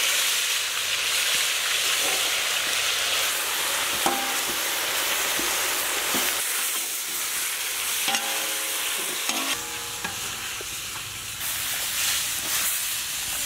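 Marinated chicken pieces sizzling loudly as they land in hot butter in a large iron kadai, then frying steadily while being stirred with a metal spatula. A few short metallic knocks and scrapes of the spatula against the pan come through the sizzle, around four seconds in and again around eight to nine seconds in.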